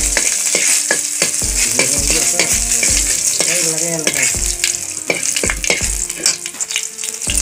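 Chopped garlic sizzling in hot oil in a steel kadai, the tempering stage of the dish, while a steel ladle stirs and scrapes against the pan in short knocks about twice a second.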